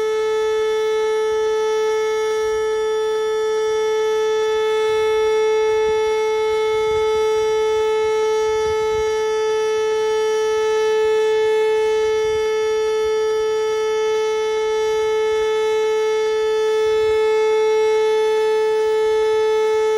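Whelen WPS electronic outdoor warning siren sounding a steady, unwavering tone with no rise or fall in pitch, its loudness swelling and easing slightly about every six seconds.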